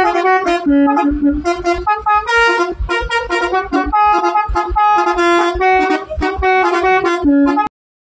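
Indonesian telolet bus horn, a multi-trumpet musical air horn, playing a fast tune of short notes one after another, with low thumps under the notes. It cuts off suddenly near the end.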